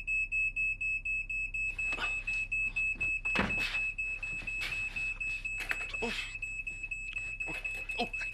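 Smoke alarm sounding: a shrill, fast, regular beeping, set off by smoke from burning toast. Short clattering noises sound over it, the loudest about three and a half seconds in.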